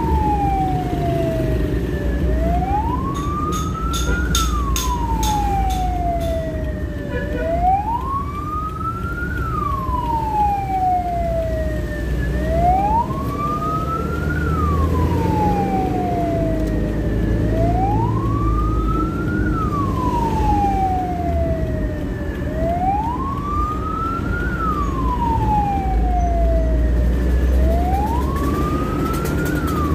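Ambulance siren wailing, its pitch rising and then falling more slowly, repeating about every five seconds. It is heard from inside the cab over steady engine and road rumble.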